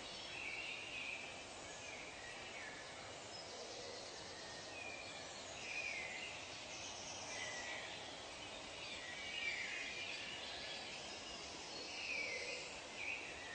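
Forest ambience of several birds calling, short chirps and falling whistles coming every second or two, over a steady background hiss.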